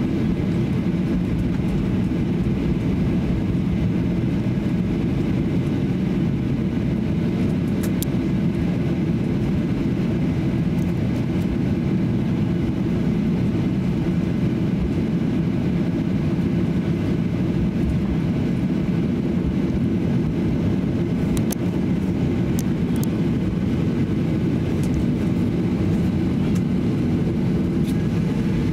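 Steady cabin noise inside a Boeing 737-800 taxiing, its CFM56-7B engines at low taxi thrust under a constant hum. A few faint light ticks come through now and then.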